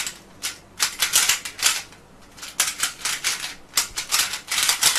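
Rubik's Cube being turned at speed-solving pace: rapid runs of plastic clicks as the layers turn, in bursts broken by short pauses.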